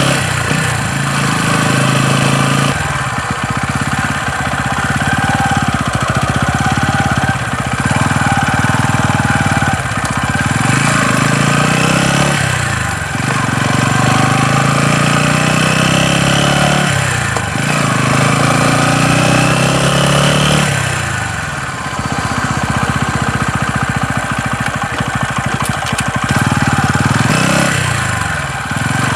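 TVS Ronin 225's single-cylinder engine running and being revved again and again, its pitch rising and then dropping back every few seconds. It carries a knocking noise that the owner finds abnormal, though the service centre calls it common to every Ronin.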